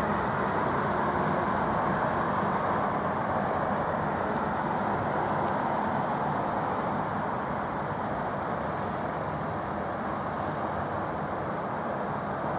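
Steady hum of city traffic, an even wash of noise with no bangs or pops, easing off slightly over the last few seconds.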